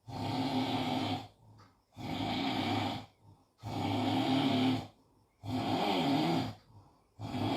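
A man snoring: a rasping snore repeated about every two seconds, five times in a row.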